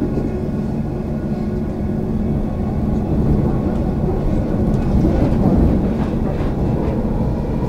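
Comeng electric suburban train running at speed, heard from inside the carriage: a steady running rumble that swells slightly in the middle.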